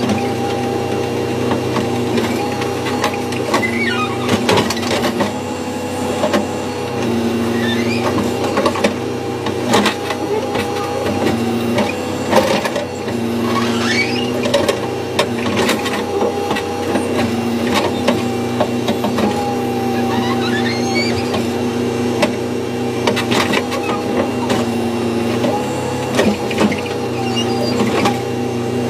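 Backhoe's diesel engine running steadily, heard from inside the cab, its pitch dipping briefly every few seconds as the hydraulics take load, with scattered knocks and clanks as the rear bucket digs into the earth.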